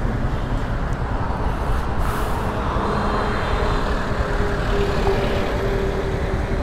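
Steady road-traffic rumble on a city street, with a phone's outgoing-call ringing tone on speaker coming in faintly about halfway through.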